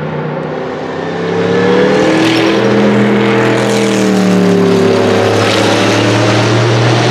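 Sauber Mercedes C8 Group C race car's twin-turbo five-litre Mercedes-Benz M117 V8 under power at speed, passing close by. It grows louder about a second in, and its pitch rises and then falls as it goes past.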